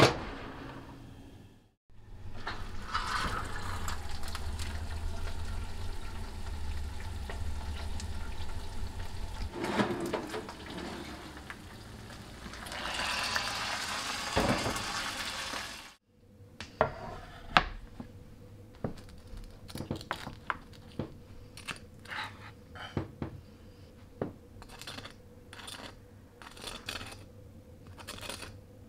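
An oven door shuts with a knock. Then comes a long stretch of kitchen handling with a steady hum and a hiss of sizzling, as the roasting pan of hot pork comes out of the oven. After that, metal tongs tap and knock irregularly on the crisp crackling skin of the roast pork shoulder.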